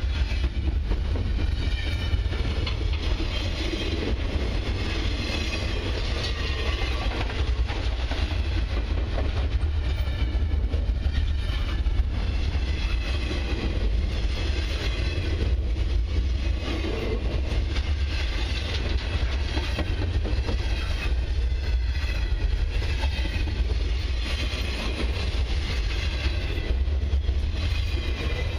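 Intermodal well cars of a long freight train rolling past on the rails with a steady rumble and wheel clatter; the last car goes by near the end.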